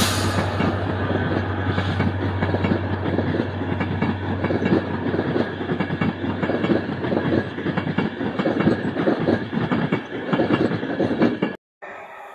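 Passenger train running past, a continuous rumble with a rapid, irregular clatter of wheels over rail joints; a low steady hum fades away in the first few seconds. The sound cuts off abruptly near the end.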